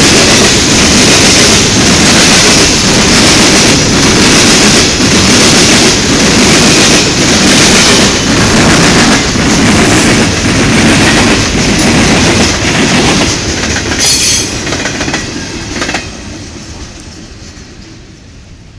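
A CSX coke train's hopper cars rolling past close by, their wheels clacking rhythmically over the rail joints, with a short high-pitched noise about fourteen seconds in. The last car passes about sixteen seconds in, and the sound then fades as the train moves away.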